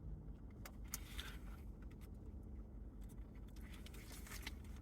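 Faint eating sounds of someone chewing a McDouble cheeseburger: a few soft, short smacking or rustling noises about a second in and again near the end, over a low steady background hum.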